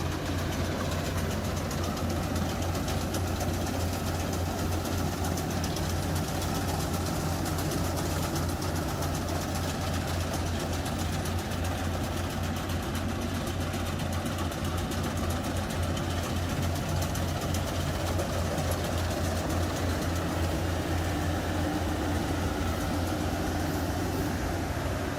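Rice harvesting machine running steadily, its engine giving a constant low hum under a dense mechanical rush.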